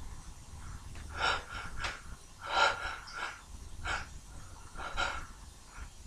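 A man's short, sharp gasping breaths and sniffs, about six of them, as a tickle-induced sneeze builds up.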